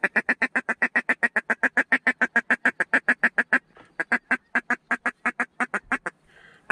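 Hand-blown duck call sounded as a long run of rapid, evenly spaced quacks, about nine a second. It breaks off briefly a little past halfway, then comes back in a shorter run.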